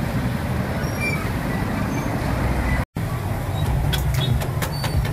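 Steady street traffic and market background noise, a continuous rumble. It cuts out for an instant about three seconds in, after which a scatter of short, sharp high clicks and clinks comes through.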